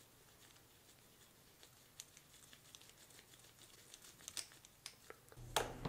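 Faint handling sounds of reassembling a small diecast toy car: nitrile gloves rustling and a metal hand tool clicking against the chassis, with a few sharper clicks near the end.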